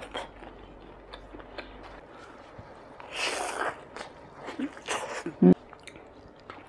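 Close-miked mouth sounds of a person eating soft food, rice and fried egg, from chopsticks: scattered small wet clicks of chewing, a louder breathy sucking noise about three seconds in, and two short hums of the voice near the end.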